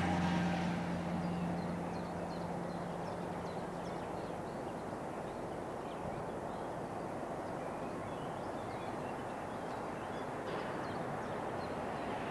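An electric locomotive hauling a freight train of tank wagons approaches with a steady rumble of wheels on rail. A humming tone fades out in the first couple of seconds, and birds chirp throughout.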